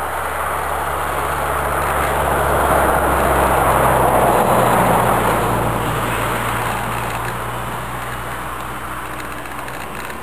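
T-28 model airplane flying past, its engine and propeller drone swelling to a peak about four seconds in and fading away. The pitch drops as it goes by.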